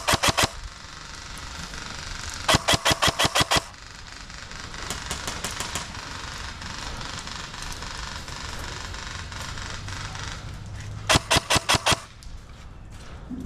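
Airsoft guns firing rapid strings of shots, each string lasting about a second. There are three loud strings: at the start, about two and a half seconds in, and about eleven seconds in. Fainter shots come in between.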